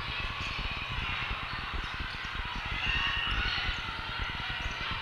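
Busy volleyball-tournament hall din: a steady wash of many voices from players and spectators across a large hall with several courts in play, with scattered thumps of volleyballs being hit and bounced.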